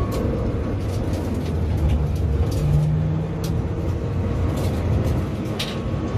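Seat Ibiza TDI's turbodiesel engine running under load on a race track, heard from inside the cabin together with road and tyre noise. The engine note swells and rises a little about two seconds in, then eases back, with a few light ticks scattered through.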